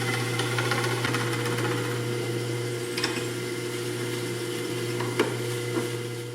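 A 1989 Delta 14 drill press running steadily with a low hum while boring into hard oak, with a few faint clicks.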